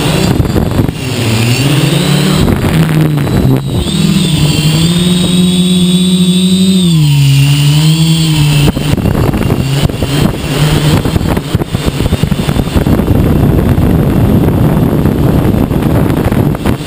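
Hexacopter's electric motors and propellers buzzing, heard from the camera on board. The pitch dips and rises with the throttle, drops about seven seconds in, and from about nine seconds the buzz is mostly buried under a rushing noise.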